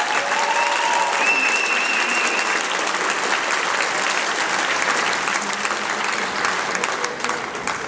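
Audience at a boxing gala applauding. A couple of held high tones ring over the clapping in the first few seconds, and the applause dies down near the end.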